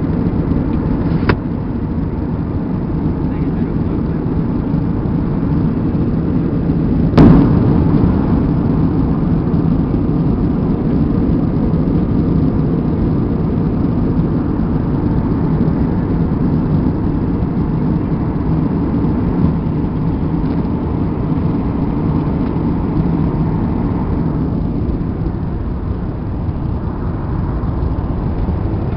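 Steady airliner cabin noise in cruise flight: the low rumble of jet engines and airflow, with a faint steady hum. A light click comes about a second in, and a sharp knock about seven seconds in.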